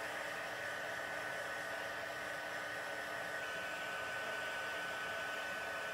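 Embossing heat tool blowing steadily with a thin high whine, drying watercolour-washed cardstock.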